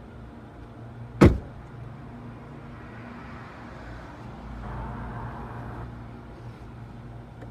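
A single loud, sharp bang about a second in, over a steady low hum, with a soft rushing swell a little past the middle.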